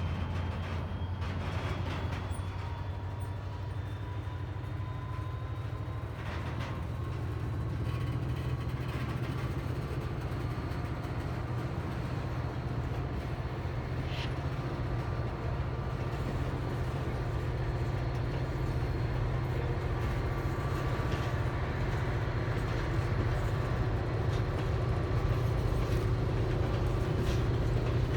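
EMD SD40-2 diesel locomotive, with its two-stroke V16 engine, running with a ballast train: a steady low rumble that grows gradually louder, with a faint thin whine above it.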